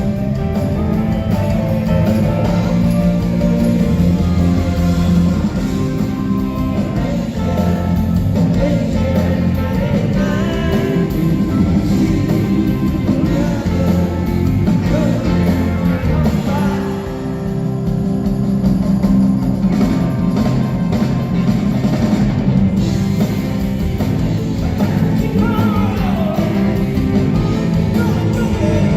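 Live rock band playing a song: guitars and drum kit with singing. The music dips briefly about halfway through, then picks up again.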